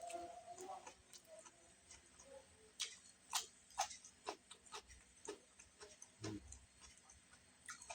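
Close-up eating sounds: a run of sharp, crisp clicks and crunches from chewing crunchy cucumber-and-carrot pickle and chicken, with a soft thud about six seconds in.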